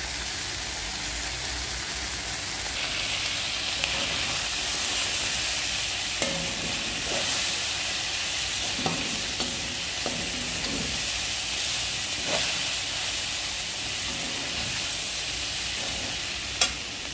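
Chopped okra and onions sizzling as they fry in oil in a kadhai, a steady hiss that gets a little louder about three seconds in. A metal slotted spoon stirring the vegetables scrapes and knocks against the pan now and then, the sharpest knock near the end.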